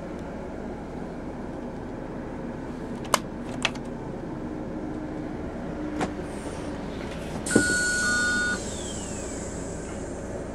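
Steady road and engine noise inside the cab of a Class A diesel motorhome on the move. A few sharp clicks come through, and about three-quarters of the way in a sudden hiss lasts about a second with two steady beep-like tones over it.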